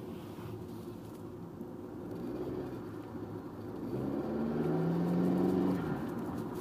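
Turbocharged 2006 Audi A4 (B7) engine running, pulling harder from about four seconds in with its pitch rising slightly under light acceleration, then easing off near the end.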